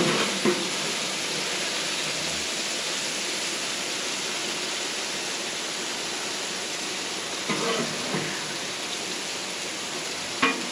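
Shredded chicken sizzling steadily in hot oil, with a few brief knocks near the start and near the end.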